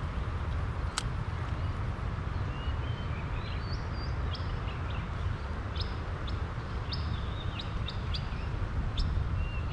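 Birds chirping in many short, high notes from about three seconds in, over a steady low rumble. A single sharp click comes about a second in.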